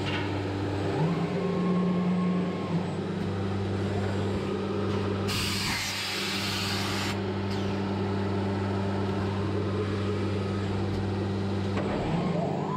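HOMAG Centateq N500 CNC nesting router running with a steady hum. A burst of hiss lasts about two seconds near the middle, and a rising whine begins near the end as the machine speeds up.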